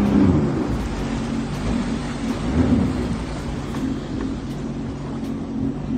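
Sea-Doo personal watercraft engine running at low speed, its pitch swelling briefly near the start and again about two and a half seconds in, under a steady rough rumbling noise.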